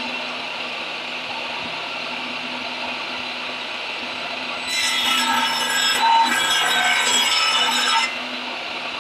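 Table saw running free, then cutting through a bark-covered log section for about three seconds from halfway in, the sound getting louder and harsher, before the blade runs free again.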